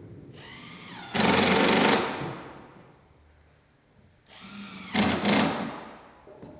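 Power drill run twice into wooden floorboards, each time spinning up with a rising whine, drilling briefly and winding down: pre-drilling pilot holes for the floorboard screws.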